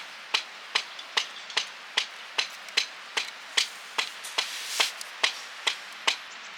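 A steady run of sharp striking blows, about two and a half a second and some fifteen in all, like a tool striking wood.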